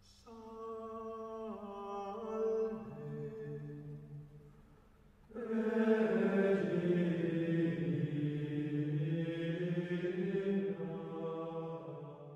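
Unaccompanied chanted singing: a quieter phrase of held notes, a short pause, then louder, fuller chant from about five seconds in that fades out near the end.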